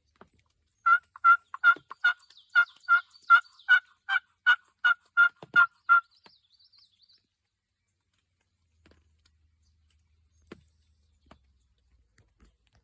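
A long run of turkey yelps: about fifteen evenly spaced notes at roughly three a second, starting about a second in and stopping about six seconds in. Faint high bird chirps trail on briefly after.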